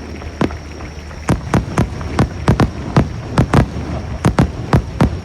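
Japanese taiko drums struck hard in a quick, fairly regular rhythm, about three strikes a second.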